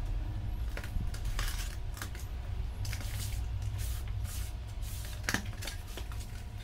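Cardboard shipping box being opened by hand: packing tape pulled and flaps folded back, a string of scrapes, rustles and taps. A steady low hum runs underneath.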